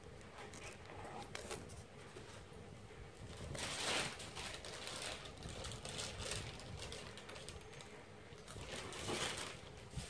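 Folded banana-leaf petals rustling and crinkling under the fingers as they are pressed and pinned to a foam form, with two louder rustles, about four seconds in and again near nine seconds.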